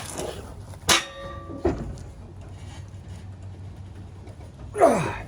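Hand tools on a seized mower-blade bolt: a sharp metal clank with a brief ringing about a second in, a softer knock shortly after, and a short sound falling in pitch near the end.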